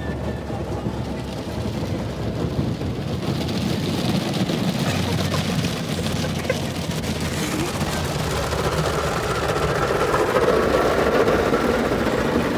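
Automatic car wash heard from inside the car: cloth brushes and water spray sweeping over the windshield and body, a steady rushing, swishing noise over a low rumble that grows louder toward the end.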